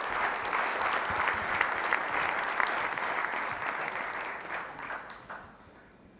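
Audience applauding, a dense patter of many hands clapping that fades away over the last second or two.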